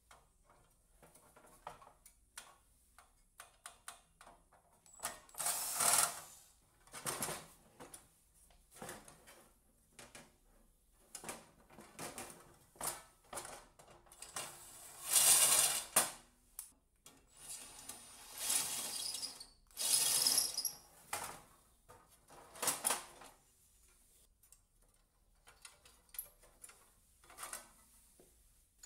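A 12 V cordless drill-driver running on screws in short bursts of a second or two, about half a dozen times, with small clicks and clatter of handling in between.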